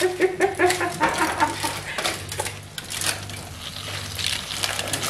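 Aluminium foil crinkling and rustling as foil parcels are pulled open in a frying pan, with sharp clicks of a metal fork against the foil and pan.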